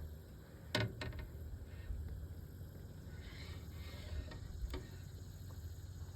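Fishing reel being handled and cranked: a few sharp clicks and a faint mechanical ticking of the reel's gears over a low steady rumble.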